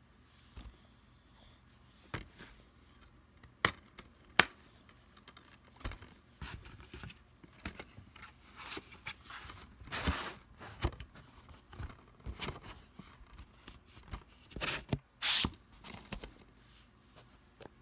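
Plastic DVD case and its cardboard slipcover being handled: a couple of sharp plastic clicks a few seconds in, then scattered rubbing, sliding and rustling sounds.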